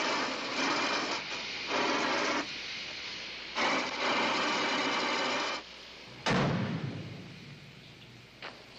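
Steam hissing in bursts from an overheated car engine under a raised hood. About six seconds in, the hood is slammed shut with one heavy thump.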